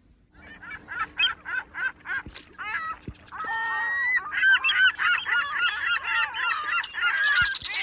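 A flock of geese honking: a string of separate honks at first, then from about three seconds in many honks overlapping.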